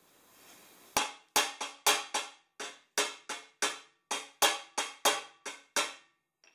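Hammer beating the dented end of a metal exhaust pipe round: about fifteen sharp, ringing metal strikes at roughly three a second, starting about a second in.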